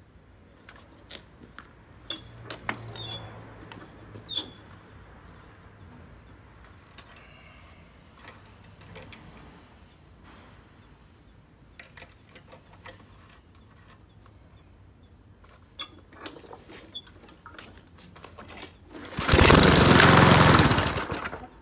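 Briggs & Stratton lawn mower engine being cold started after sitting about 20 months. After a run of scattered clicks and knocks, near the end it is pull-started, runs loudly for about two seconds, then stops.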